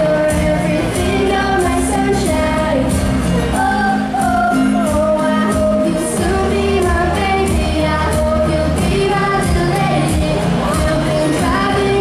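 Pop song performed live: a sung melody over accompaniment with a steady drum beat.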